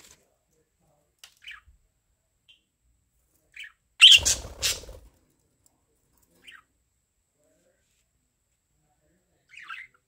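Budgerigars calling: a few short, scattered chirps, and one loud call lasting about a second about four seconds in, with a low rumble underneath it.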